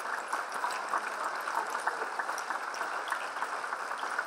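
Audience and performers applauding, a steady dense patter of many hands clapping.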